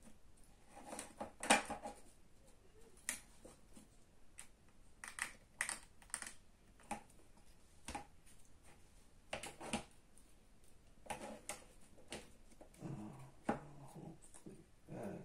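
Irregular small clicks and taps of hand tools and parts being handled while an iPod Video is taken apart.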